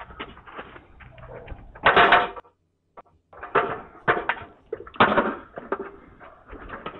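Irregular knocks and clatters, the loudest about two seconds in and several more in the second half, picked up through a CCTV camera's built-in microphone, which makes them sound thin and dull.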